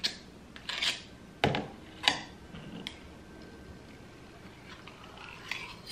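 A handful of short clicks and knocks in the first three seconds as shortening is scooped from a can with a metal measuring cup and knocked into a ceramic mixing bowl, then quieter handling.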